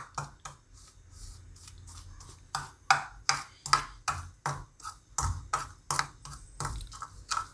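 Steel spoon stirring powdered spices in a ceramic bowl, clinking and scraping against the bowl. The strokes are soft at first and then come quicker and sharper, about two or three a second, for the last few seconds.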